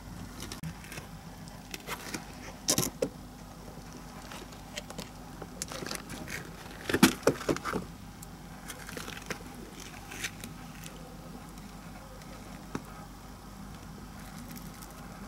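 Scattered light clicks, knocks and rustles of something being handled on dirt and debris, loudest in a cluster about three seconds in and again around seven seconds in, over a steady low hum.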